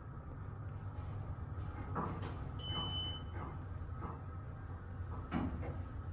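Elevator car travelling, with a steady low hum, and a single short electronic beep about three seconds in, with a few light knocks around it.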